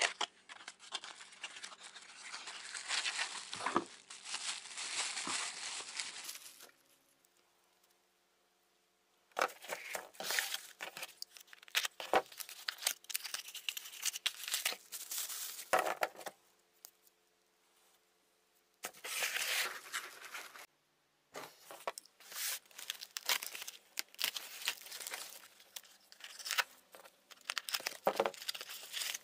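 Plastic bubble wrap and small cardboard boxes being unwrapped and handled: crinkling and rustling in irregular bursts, with a few quiet pauses.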